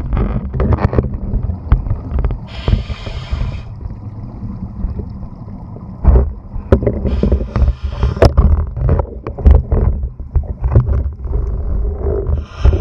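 Underwater sound through a camera's waterproof housing: a scuba diver's regulator breathing, with a hissing rush of exhaled bubbles three times, every four to five seconds, over a constant low rumble and many knocks and clicks of the housing being handled against gear.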